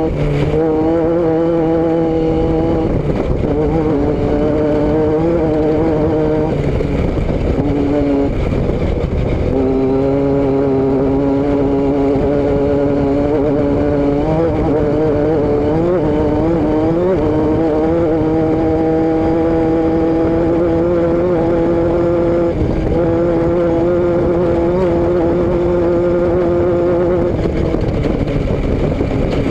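Vehicle engine and exhaust running under way: a steady drone whose pitch holds for long stretches, with a few short rises and falls in revs.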